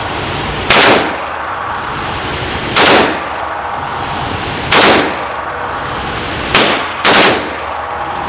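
M4 carbine fired on full auto in short bursts, about one every two seconds: five loud cracks in all, the fourth very brief, over a steady background noise.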